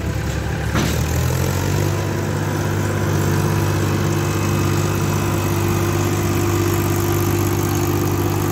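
Mahindra tractor's diesel engine pulling a trailer loaded with soil up a slight rise. It revs up under load about a second in, then holds a steady, laboured note.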